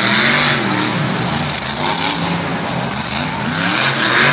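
Monster truck's supercharged V8 revving hard, loud, its pitch rising and falling again and again as the driver works the throttle while the truck throws itself up onto two wheels.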